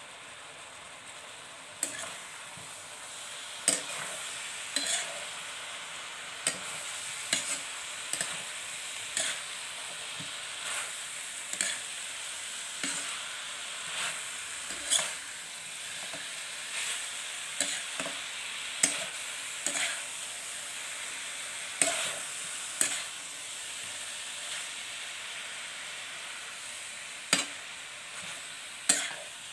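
Chicken pieces sizzling in a metal electric wok as they are stir-fried, with a steady hiss and a metal spatula scraping and clicking against the pan about every second or two.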